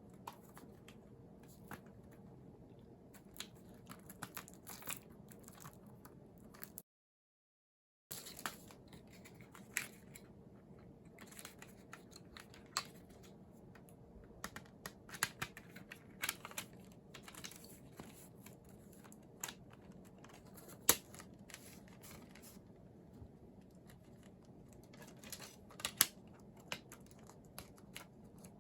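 Scattered clicks, rustles and crinkles as CD packaging is handled and opened by hand, over a faint steady room hum. One click about three-quarters through is much louder than the rest, and the sound drops out completely for about a second near the start.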